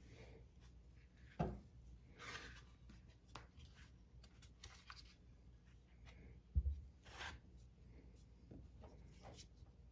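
Faint handling noises of a crossbow being moved about on a wooden tabletop: light rubs and scrapes of its plastic and metal parts, with two short knocks, one about a second and a half in and a louder one about six and a half seconds in.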